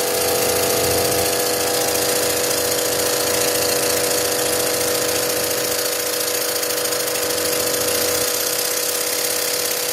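Stuart No. 4 model steam engine running fast on compressed air, its exhaust giving an even, rapid beat, over the steady buzz of an air compressor running. The engine is being run in, with oil carried through the cylinder in the air.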